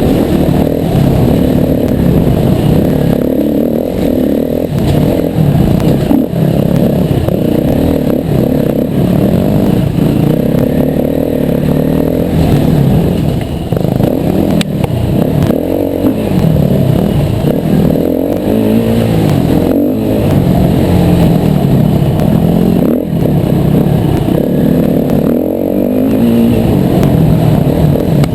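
Yamaha WR250R's 250 cc single-cylinder four-stroke engine being ridden hard, its revs rising and falling over and over as the throttle is worked.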